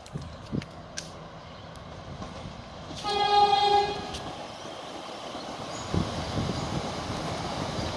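Melbourne Metro suburban electric train sounding one short horn blast about three seconds in. Its running rumble then grows steadily as it approaches.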